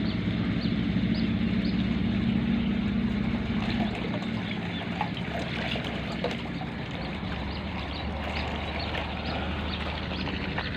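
Steady running water with a low engine hum that fades about four seconds in, and short high chirps repeating about twice a second.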